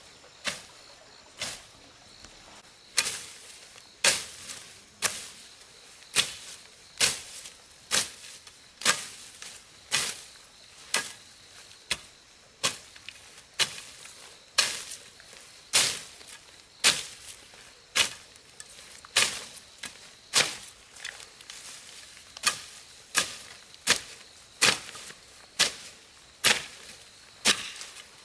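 A steady series of sharp strikes or knocks, about one or two a second, each cut short with a brief ringing tail, like a repeated working stroke.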